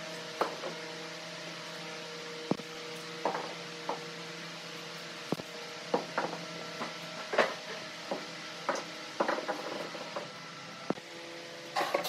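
Scattered, irregular knocks and clunks of solid wooden blocks: heavy bed legs set down on a concrete floor and a timber rail fitted into their slotted tops. A steady low hum runs underneath.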